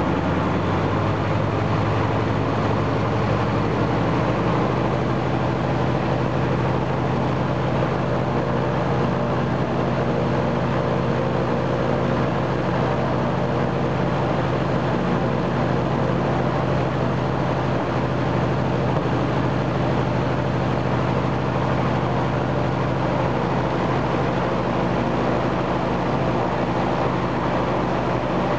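Ilyushin Il-14's Shvetsov ASh-82T fourteen-cylinder radial piston engine running on the ground with its cowlings removed, turning its propeller. It picks up speed slightly a few seconds in, then runs steadily.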